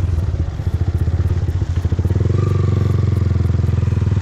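Yamaha R15M's single-cylinder engine running through an aftermarket Akrapovic exhaust while being ridden; the sound eases off briefly about half a second in, then picks back up.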